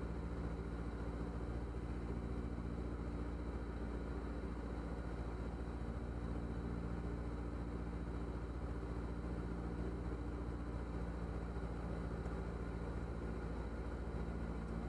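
Diamond DA40's single piston engine and propeller running steadily, heard from inside the cockpit as an even drone.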